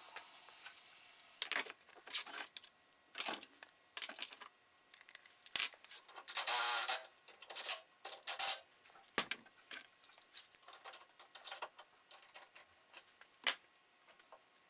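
Hand tools and metal parts clicking and clinking in irregular sharp strikes, with a longer rasping stretch about six and a half seconds in.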